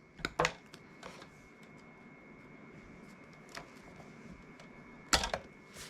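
Side cutters snipping the excess outer insulation off an electrical cable: two quick snips at the start, faint clicks in between, and two louder snips near the end.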